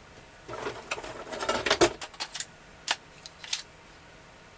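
Small parts of a gas airsoft pistol and its magazine being handled: a stretch of scraping and rattling, then three separate sharp clicks.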